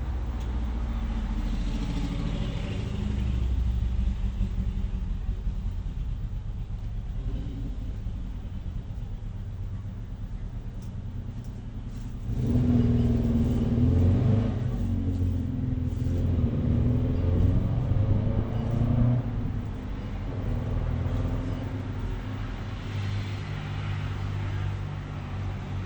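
Low, steady rumble of road traffic. A louder vehicle passes for several seconds around the middle.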